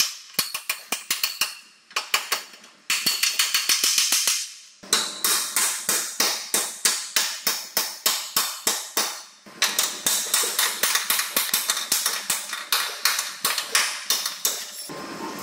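Steel hammer blows on the bent front chassis beam of a Toyota Land Cruiser Prado, struck against a second hammer held behind it as a dolly. Sharp metallic strikes come in quick runs of about four a second, with short pauses, as the deformed beam is hammered back into shape.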